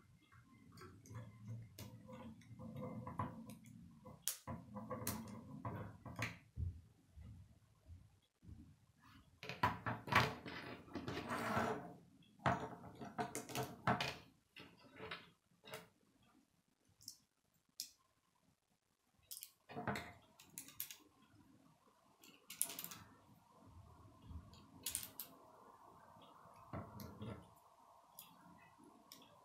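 K'nex plastic rods and connectors being handled and snapped together: irregular clicks and rattling of plastic pieces, busiest near the middle.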